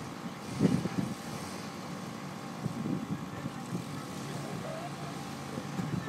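Engine of a six-wheeled off-road truck running under load as it climbs a steep sandy slope, with the revs surging a few times.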